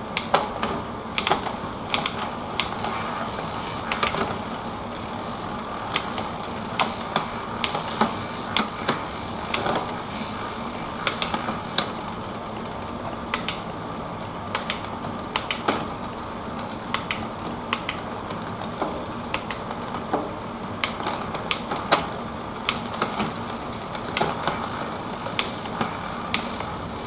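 Irregular sharp clicks and ticks over a steady hum, from a mountain bike's SRAM 1x11 drivetrain being worked on as the rear derailleur's limit stops are adjusted and the shifting tried onto a 44-tooth cog.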